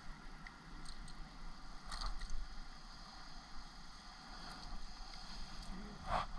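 Faint shallow water lapping and sloshing around a wading angler, with light handling clicks and a short louder splash-like sound near the end.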